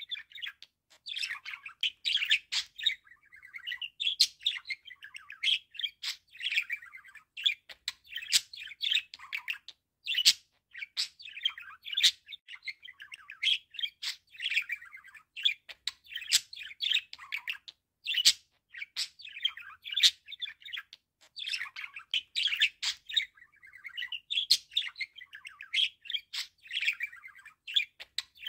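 Budgerigar warbling and chattering: a fast, continuous run of short chirps, clicks and whistles, broken now and then by brief pauses.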